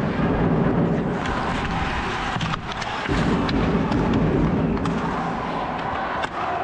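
Ice hockey play in a rink: skates scraping on the ice under a steady din, with sharp clicks of sticks and puck scattered through it.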